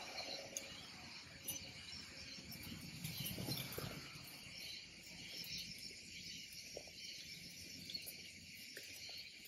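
Steady chorus of insects, with a rustle of leaves and branches about three seconds in as someone pushes through the brush under a citrus tree.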